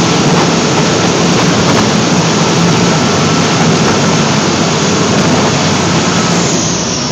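Seine skiff's engine running hard under load, pulling against a tow line, with its propeller wash churning the water astern. Near the end a high whine slides down in pitch and the sound eases slightly.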